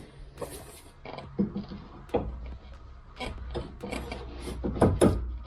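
Irregular clicks and light knocks as a car's front suspension arm and its bushings are handled and checked for play, about half a dozen sharp ones with the loudest near the end, over a low steady hum.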